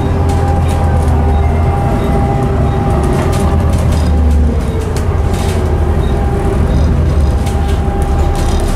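Volvo B7TL double-decker bus under way, heard from inside the lower deck: the Volvo D7C diesel engine drones steadily under a constant whine, with a tone that falls in pitch around the middle and light interior rattles.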